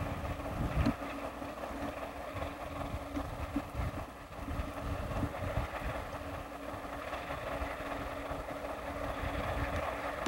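Baldwin diesel locomotives running as they move a train, a steady engine drone with a constant tone, with wind buffeting the microphone in irregular low thumps.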